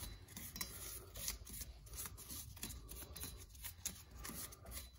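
Faint, irregular scratchy rubbing as a gloved hand scrubs rust and scale off the face of a bare front wheel hub.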